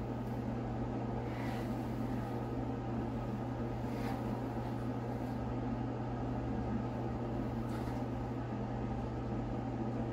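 A small electric blower running steadily: an even rush of air over a constant low motor hum.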